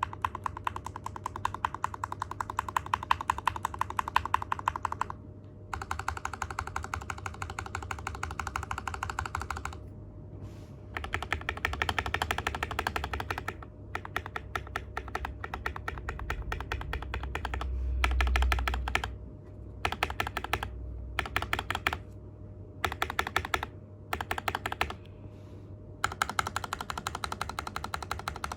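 Mechanical keyboard with lubed Gateron Milky Black linear switches, ABS OEM-profile keycaps and case and plate foam, typed on fast in runs of a few seconds broken by short pauses, each run a dense stream of keystrokes. A low rumble swells briefly about two-thirds of the way through.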